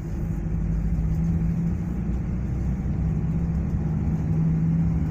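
Bus engine running at a steady, even pace, heard from inside the bus as a low drone with a steady hum.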